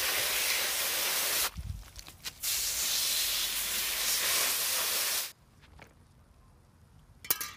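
Garden-hose spray nozzle hissing as its jet rinses degreaser off a bike cassette and splashes into a plastic tub. It sprays in two long bursts with a break of about a second between them, and the spray stops about five seconds in. A short click follows near the end.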